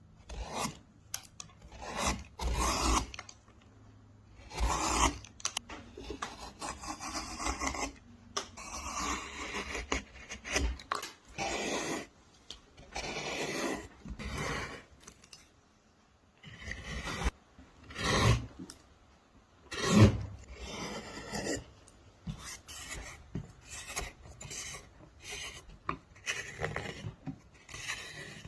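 Wood being worked by hand: a long series of irregular rubbing and rasping strokes of varying length, broken by short pauses. One heavier stroke or knock about two-thirds of the way through is the loudest.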